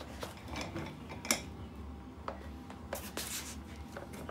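Soft rubber office-chair casters rolling quietly over rough concrete, a low steady rumble, with shoe soles scuffing the floor as the sitter pushes along. There is a sharp click about a second in and a brief scrape around three seconds.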